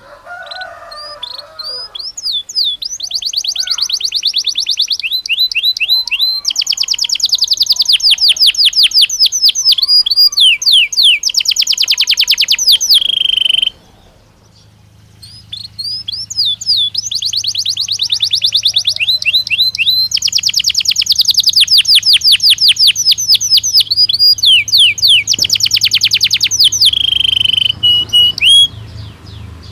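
Domestic canary (sold as a Belgian canary, 'canário belga') singing. It gives two long song phrases of fast trills and quickly repeated sweeping notes, with a pause of about a second midway.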